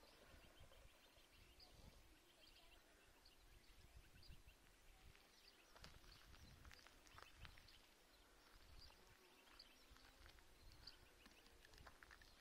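Faint, high peeping of greylag goose goslings: many short peeps repeated throughout, with a few soft clicks and a low rumble underneath.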